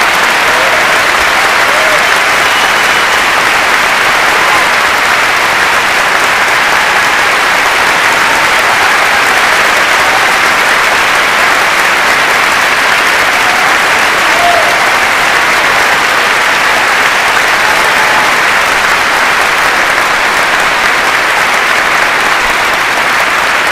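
Theatre audience applauding steadily and loudly, with a few faint shouts or cheers mixed in.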